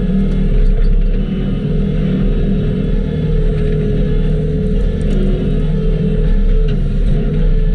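Skid steer engine running steadily under load, its pitch wavering slightly.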